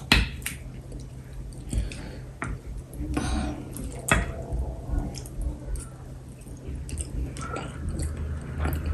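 Close-up chewing and wet eating sounds of pounded yam and pepper soup, with scattered short clicks and taps throughout.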